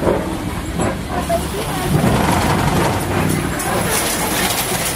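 Open-sided safari ride truck driving along, with steady engine and road noise.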